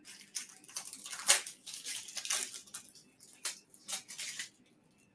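Hands rustling and crinkling paper and heat-resistant tape: a quick run of irregular scratchy noises that stops about four and a half seconds in.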